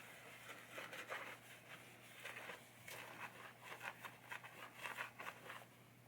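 Faint, irregular rubbing strokes of a cloth towel wiping across a pinball playfield, several quick scrapes a second, which stop about five and a half seconds in.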